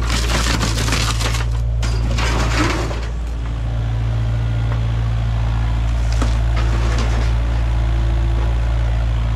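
Kubota KX057 mini excavator at work: for about the first three seconds, a dense crackling crunch of debris breaking in its bucket and thumb, then its diesel engine running steadily as the machine swings, with a faint hydraulic whine and a couple of light clicks.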